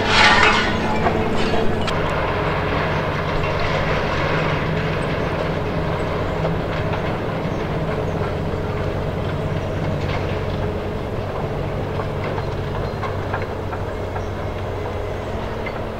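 Demolition excavator with a hydraulic crusher attachment working on a building: a steady heavy diesel engine hum, with a burst of crunching, falling rubble in the first second and scattered knocks of debris later on.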